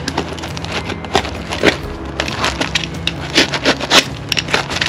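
Small cardboard box being cut and torn open: a run of irregular crackles, snaps and tearing of cardboard and packing tape.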